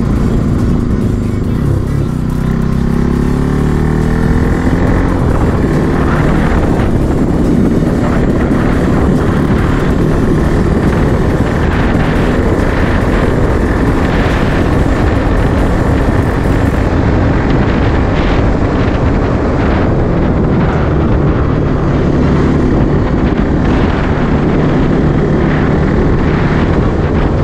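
Bajaj Pulsar NS200 single-cylinder engine accelerating, rising in pitch about two seconds in. It then runs hard and steady at highway speed.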